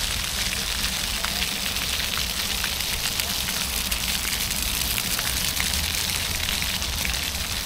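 Steady rumble and hiss of a passenger train in motion, with light rattling clicks throughout.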